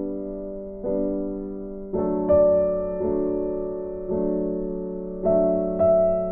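Background music of slow, gentle piano chords. Each chord is struck and left to ring and fade, with a new one about every second.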